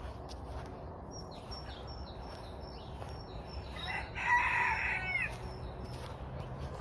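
A rooster crows once, about four seconds in: one long call ending in a falling note. Small birds chirp before it, over a low background rumble.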